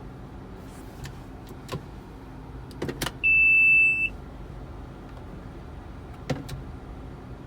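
Inside an eighth-generation Honda Civic, a few sharp clicks, then a single loud, high electronic beep lasting about a second, a little over three seconds in, then two more clicks near the end, over the car's steady low hum.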